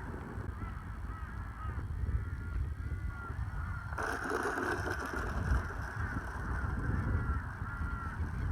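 Birds giving a run of short honking calls over a steady low wind rumble on the microphone, with a burst of hiss about four seconds in.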